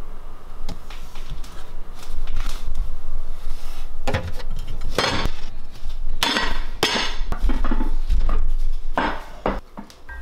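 Kitchenware clattering and clinking as pots, dishes and bottles are handled and moved about in a refrigerator. It comes as a string of short clatters, busiest between about four and seven seconds in, with one more near the end.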